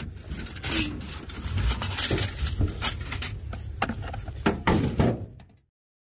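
Loose old metal data plates and small parts clinking and scraping against one another in a metal tub as a hand sorts through them, in irregular knocks and clicks. The sound cuts off abruptly near the end.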